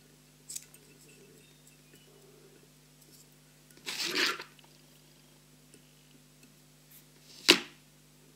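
Quiet fly-tying handling noises over a faint steady hum: a small click early, a short rustle about four seconds in, and a sharp single snip near the end as scissors trim the tag end of the tying thread.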